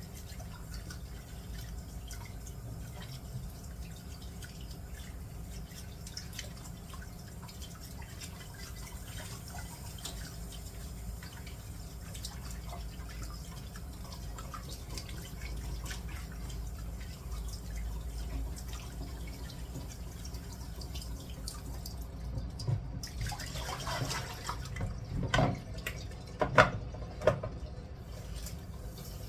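Leaves being rinsed by hand in water: dripping and small splashes, with a few sharper knocks near the end.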